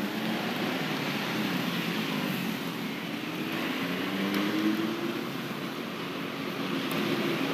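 Road traffic passing: steady engine and tyre noise, with engine tones slowly rising and falling in pitch.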